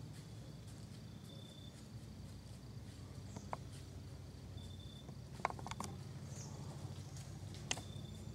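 Quiet woodland with a few sharp snaps and crackles, a cluster of them about five and a half seconds in being the loudest, over a steady low hum. A brief high chirp comes twice.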